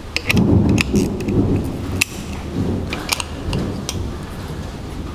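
Deep rolling rumble of thunder, loudest in the first second and a half and fading back in again later, with a few light clicks of tools at the engine block.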